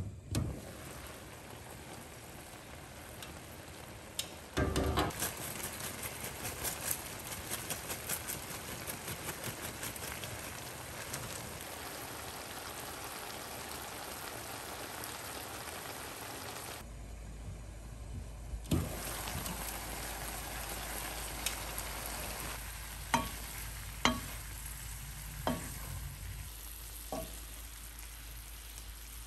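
Food sizzling in a hot pan while it is stirred. The sizzle starts with a thump about five seconds in, with quick light scrapes and ticks at first and a few sharp utensil taps against the pan near the end.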